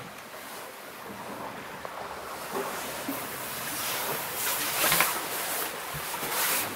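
Water rushing along the hull of a sailing yacht under way, heard from inside the cabin, growing louder in the second half, with a few light knocks.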